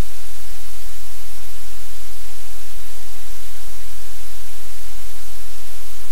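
Loud, steady static-like hiss with a low hum beneath it; no distinct puppy sounds stand out.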